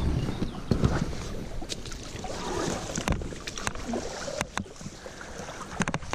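Wading and splashing in shallow stream water as a kayaker climbs out, with scattered sharp clicks and knocks.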